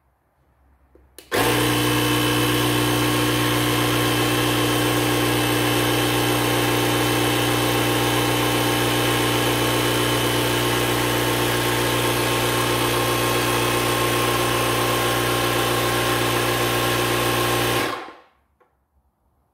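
Parkside PKA 20-LI-A1 cordless inflator/compressor inflating a car tyre through its hose. It switches on about a second in after a faint click, runs with a steady hum at an even pitch, then winds down and stops near the end.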